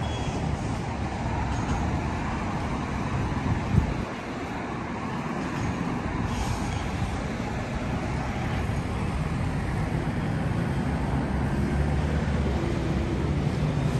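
Steady roadside traffic: engines and tyres of cars and trucks passing on a multi-lane road, with one short knock a little under four seconds in.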